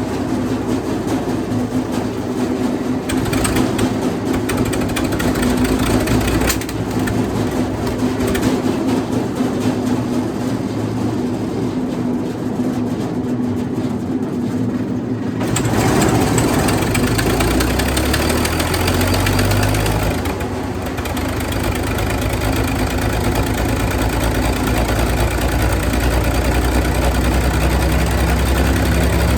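Wood chipper's gasoline engine running. About halfway through its sound changes, the engine speed wavers for a few seconds, then it settles into a steady run.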